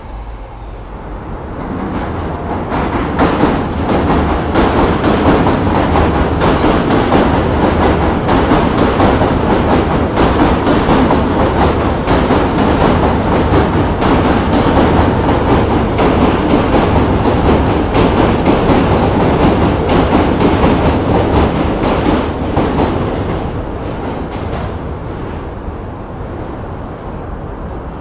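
New York City Subway train of stainless-steel R160-type cars passing close by, wheels clattering over the rail joints. It builds up over the first couple of seconds, stays loud through the middle and fades away after about twenty seconds.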